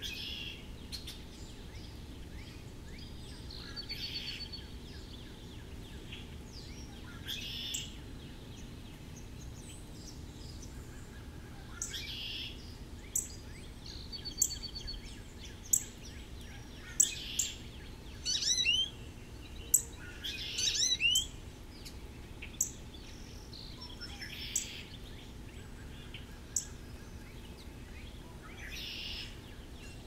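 Small songbirds calling around a backyard seed feeder: a scatter of short, very high chips and a few brief trills, busiest in the middle.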